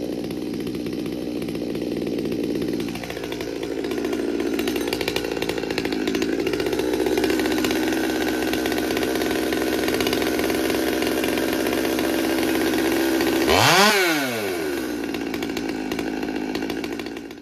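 Stihl MS200T two-stroke top-handle chainsaw idling after a cold start, its idle speed creeping up as it warms: a sign the owner takes for the carburetor going out of tune once warm. The idle sags briefly about three seconds in and recovers, and near the end one quick throttle blip raises and drops the pitch.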